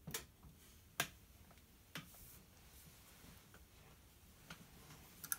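Quiet room with a few faint sharp clicks, roughly one a second, the first few the clearest.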